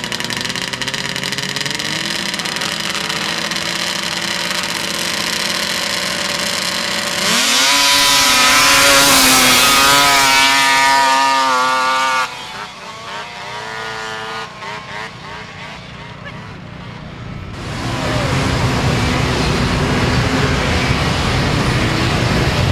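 Racing snowmobile engines running at the start line, then revving hard in a rising whine about seven seconds in as the sleds launch up the hill. About five seconds later the sound drops abruptly to a quieter engine drone that falls in pitch, and near the end a nearby engine runs loud again.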